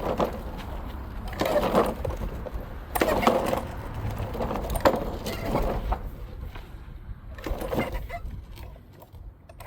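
Old lawn mower's recoil starter being yanked about four times, a second or two apart, each pull a brief rasping surge; the engine turns over but does not fire.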